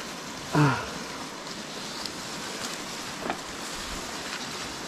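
Steady rush of flowing river water, with a brief shout from a man about half a second in.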